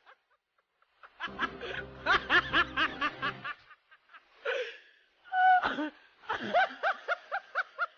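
Young woman laughing, quick giggling bursts in two runs: one starting about a second in, the other in the second half.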